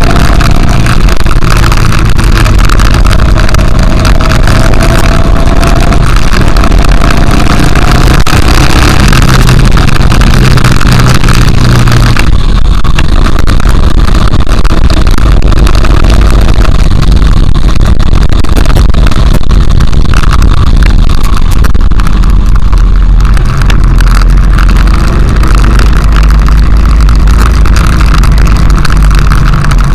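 Honda XRV750 Africa Twin's V-twin engine running while the bike rides along, very loud and mixed with heavy wind rumble on the microphone. About twelve seconds in, the high hiss drops away and the low rumble stays.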